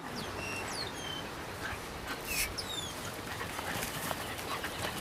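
White Swiss shepherd and dogo argentino puppies whimpering: many short, high squeaks, each falling in pitch.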